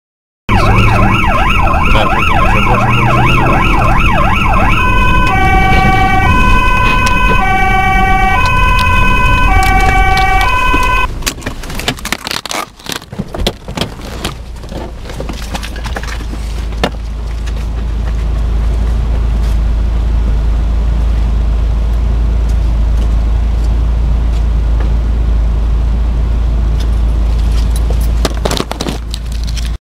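An emergency-vehicle siren wails in a fast rising-and-falling yelp, then switches to a two-tone high-low pattern. About eleven seconds in it stops, giving way to rough, uneven noise and then a loud, steady low rumble of a car moving at speed, heard from inside the car.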